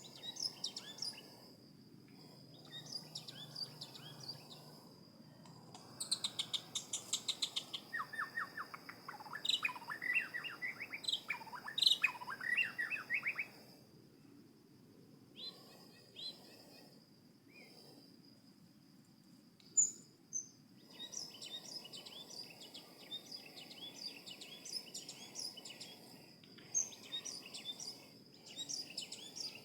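Songbirds chirping and calling in quick, varied bursts of notes, with a pause in the middle and a dense run of chirps near the end. A thin, steady high-pitched whine runs underneath.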